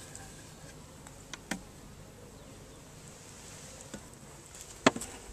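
Honey bees buzzing as a faint steady hum around the hive, with a few sharp clicks, the loudest near the end.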